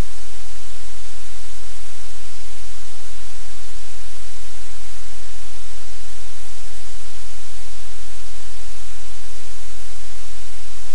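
Loud, even static hiss that does not change, covering every other sound.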